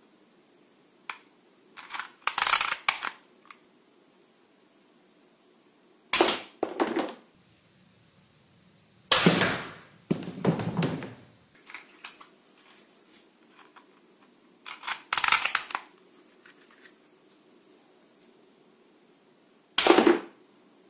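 Toy guns firing in about five short bursts of rapid, rattling gunfire-like sound, separated by pauses of a few seconds.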